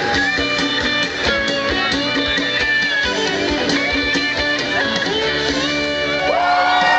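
Two guitars strummed in a steady rhythm, playing chords of a song.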